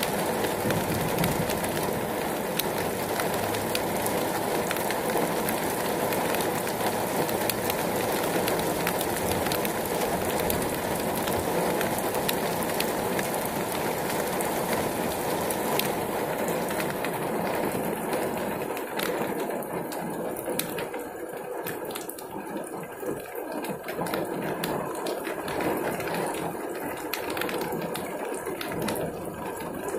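Heavy rain pouring down onto pavement and a metal fence, a steady rushing hiss with many fine drop ticks. A car passes on the wet road in the first several seconds with a low rumble, and about halfway through the rain sounds duller.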